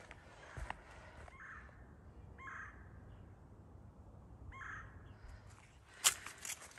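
A crow cawing three times, each call short and harsh. A sharp click near the end is the loudest sound.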